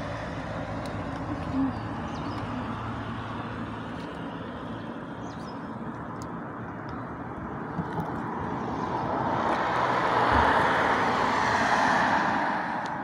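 Road traffic: a passing car's tyre and engine noise swells over the second half and fades away near the end, over steady background traffic.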